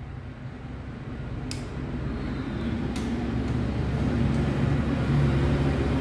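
A motor vehicle's engine running steadily, growing louder over several seconds. Two sharp metallic clicks come about a second and a half apart.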